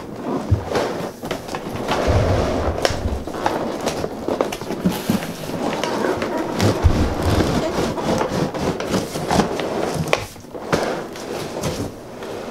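A clear plastic tray of toy parts being slid out of a cardboard box: plastic scraping and rustling against cardboard, with many small knocks and clacks.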